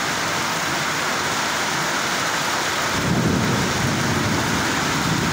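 Heavy monsoon rain pouring steadily, with a low rumble swelling in about three seconds in.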